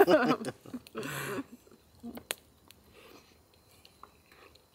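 The tail of a spoken word and a short vocal sound about a second in, then quiet eating: a few faint clicks of forks on plates about two seconds in.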